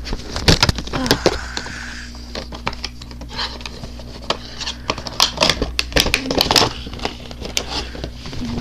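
A Funko Pop cardboard box and its plastic window insert being opened and handled, crackling and scraping in a run of sharp clicks, busiest about a second in and again from about five to seven seconds.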